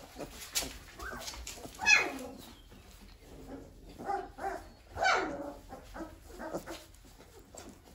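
Three-week-old livestock guardian puppies whining and yelping in a string of short cries that fall in pitch, the loudest about two seconds in and a longer one about five seconds in.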